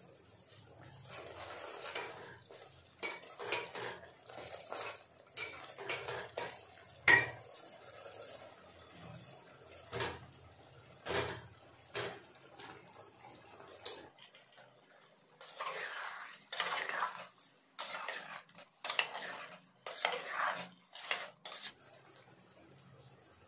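A spatula stirring a thick curry gravy in a metal pot, with irregular scrapes and clinks against the pot's sides; one sharp clink about seven seconds in is the loudest.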